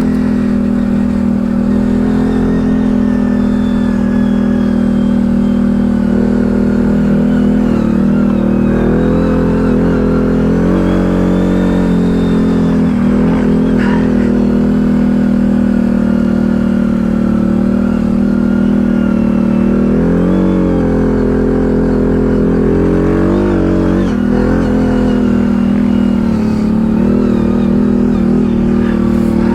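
ATV engine running under way on the trail, a steady drone whose pitch rises and falls back a few times as the throttle is worked.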